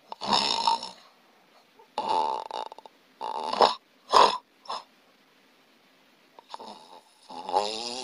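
A sleeping person's heavy snoring, the kind graded as the truly dangerous stage: a run of uneven snores about once a second, a quiet gap of nearly two seconds, then a longer snore near the end.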